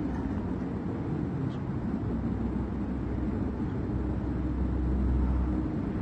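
Steady low rumble and hiss of background room noise in a pause between chanted passages of the prayer recitation, with no voice; the low hum swells a little about four seconds in.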